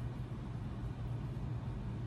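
Steady low background hum with a faint even hiss: room noise, with no distinct event.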